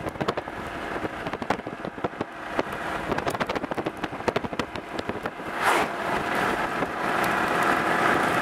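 Heavy rain pelting the roof and windshield of a moving car, first as a fast patter of sharp individual hits, then thickening into a steadier downpour hiss over the last few seconds, with a brief rushing swell a little past the middle.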